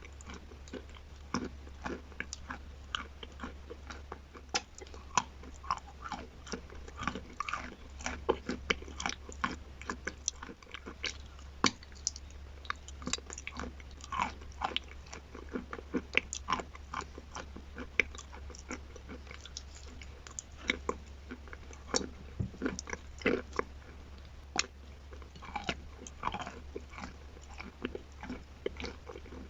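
Close-miked chewing and crunching of chalk with chalk paste: irregular sharp crunches, several a second, over a steady low hum.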